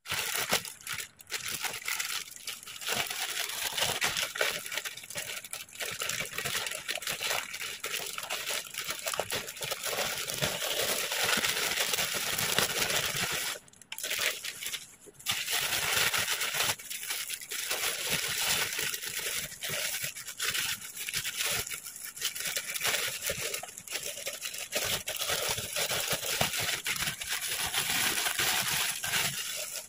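Plastic courier bag and plastic wrapping crinkling and rustling as they are handled and opened. The noise breaks off briefly twice around the middle.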